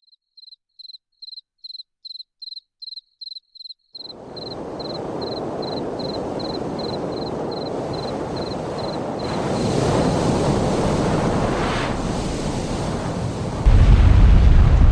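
A row of short high chirps, about three a second, gives way about four seconds in to a rushing rumble that swells. Near the end it breaks into a loud, deep rumble: the sound of a volcanic eruption.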